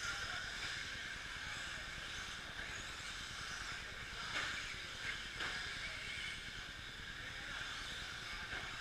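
Several 2WD short course RC trucks racing: a steady hiss of motors and tyres on the clay, with two short knocks about four and a half and five and a half seconds in.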